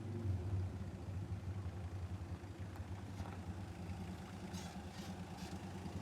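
Car engine running at a steady idle, a low even hum, with a few light clicks in the second half.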